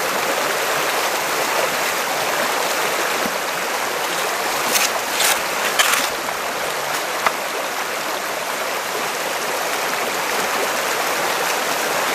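Fast creek water rushing steadily over and through a flared aluminum sluice box set in the current, with a few brief sharp noises about halfway through.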